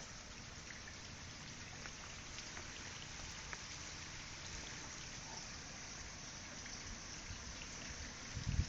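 Steady faint hiss with scattered light ticks, like light rain pattering.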